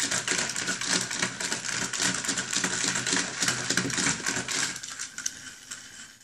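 Battery-powered Chubby Puppies toy running, its small motor and plastic parts making a fast, continuous clicking rattle that dies down about five seconds in.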